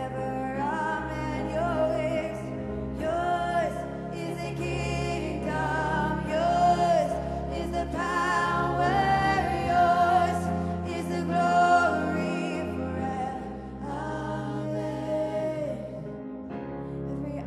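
Live contemporary worship song: women singing together into microphones, holding long wavering notes over sustained instrumental backing with steady low bass.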